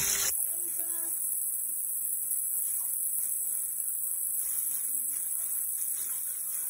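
Chicken deep-frying in oil in a pan, a steady faint sizzle, with a few faint short high calls in the background.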